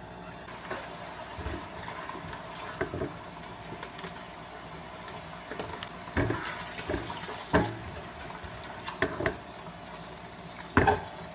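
Hot, steaming cooked food being tipped from a pan into a glass bowl: liquid pouring and sloshing, with several sharp knocks of utensil and cookware scattered through it, the loudest near the end.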